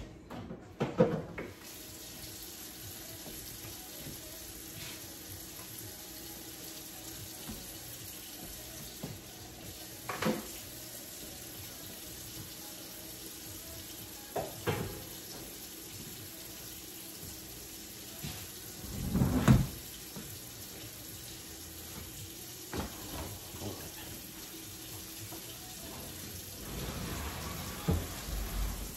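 Water running steadily in a kitchen, starting about a second and a half in. Scattered clunks of kitchenware sound over it, the loudest a little past the middle.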